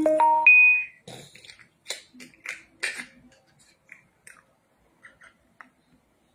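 A woman laughing hard while trying to hold it in behind her hand: a loud high squeal that climbs in pitch in the first second, then short breathy bursts of stifled laughter with pauses between them.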